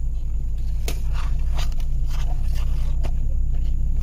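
Steady low rumble inside a car's cabin, with scattered light scrapes and taps as an inspection camera and its cable are handled in a soft zippered case.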